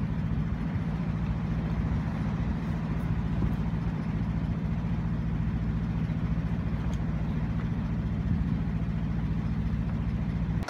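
A sailboat's inboard auxiliary engine running steadily at idle while the boat is anchored: a low, even hum with fast regular pulses.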